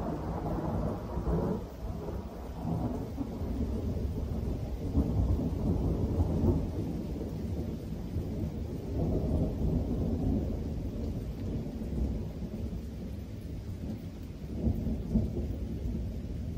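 Thunder from a night thunderstorm rumbling on and on, swelling and fading in several long waves.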